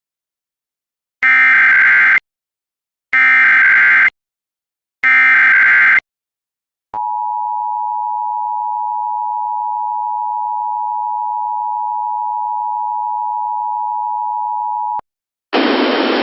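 Emergency Alert System tones: three one-second screeching bursts of SAME header data about two seconds apart, then the two-tone EAS attention signal held steady for about eight seconds before cutting off. Near the end a hiss of radio static begins.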